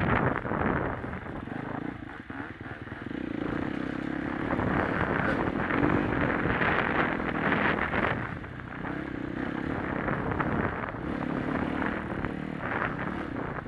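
Dirt bike engine running on an off-road trail, heard from the rider's seat, swelling and easing off several times with the throttle, under a constant wash of wind and trail noise.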